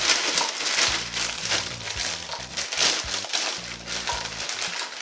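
Plastic snack bag crinkling as pork rinds are shaken out of it into a cast-iron skillet, with background music underneath.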